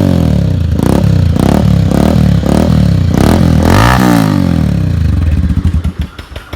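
Bajaj Pulsar 180 single-cylinder motorcycle engine revved in quick repeated throttle blips, each rising and falling in pitch, with one bigger rev about four seconds in. Near the end it drops back to an even, pulsing idle.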